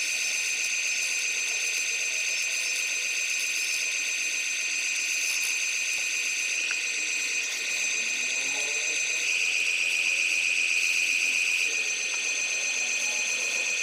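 RC excavator's electric motor and hydraulic pump whining steadily with a high-pitched buzz. It rises in pitch and level about nine seconds in, as if working under load, and drops back near the end.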